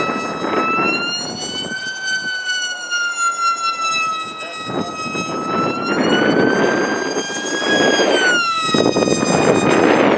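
Mini Rite Wing RC flying wing's motor and propeller whining as it flies, the pitch slowly rising and falling and dropping sharply about eight and a half seconds in. Wind buffets the microphone, heaviest in the second half.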